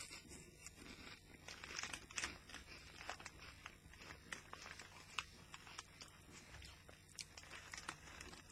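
Faint, irregular crunching and crackling of Walkers potato crisps being chewed.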